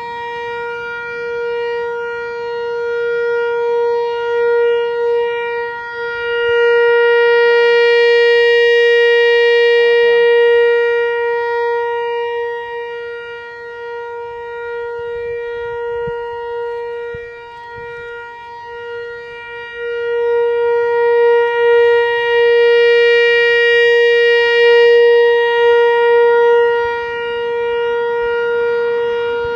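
Analog Whelen WPS-4004 electronic outdoor warning siren sounding the steady Alert tone: one unbroken, buzzy tone at a fixed pitch. It grows louder and then fainter twice as the siren's rotating speaker head sweeps past.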